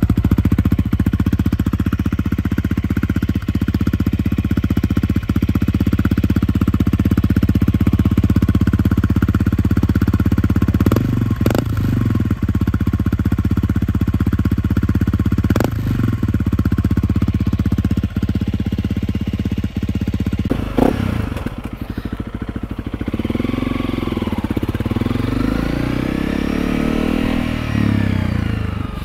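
2022 Honda CRF300L's single-cylinder engine running through a freshly fitted Yoshimura RS-4 full exhaust with no spark arrestor. It idles steadily with a few quick throttle blips about halfway through. After about 20 seconds the bike is under way, the engine pitch rising and falling as it is ridden.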